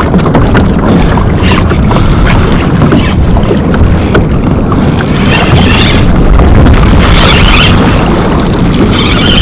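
Heavy wind buffeting the microphone on open water, a loud steady rumble with scattered small clicks and knocks from the kayak.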